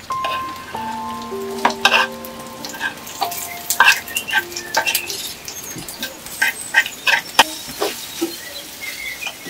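Wooden spoon scraping and knocking against clay as canned fish is tipped into a hot, oiled clay pot and stirred, with frying sizzle under the strokes. Soft background music notes sound in the first few seconds.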